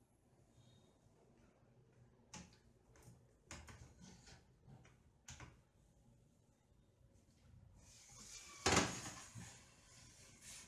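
A circular saw, switched off, sliding along the aluminium rails of a crosscut jig. A few light clicks and knocks, then a short scraping slide about nine seconds in.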